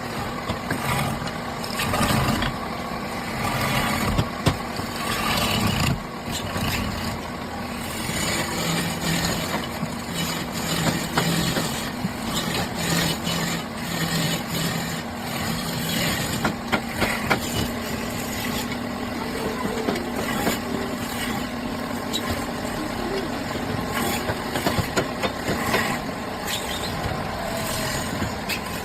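Wood lathe running, with a turning tool cutting and scraping the spinning wood: a steady motor hum under a continuous rough cutting noise scattered with sharp ticks.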